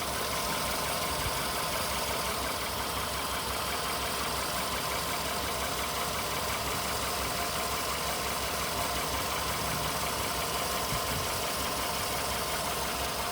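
Volkswagen Polo Sedan engine idling warm and steady, with a light, even tapping in its running: an engine knock that the owner says is getting worse as the car nears 100,000 km.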